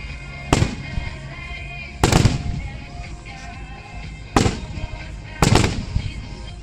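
Aerial firework shells bursting overhead: about five sharp booms at uneven spacing, two of them in quick succession near the end, each trailing off briefly.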